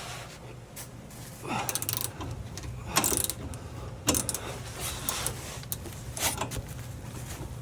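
Hand tools working a seized shock-absorber nut: a few sharp metal clanks and a short stretch of scraping and ratcheting, over a steady low hum.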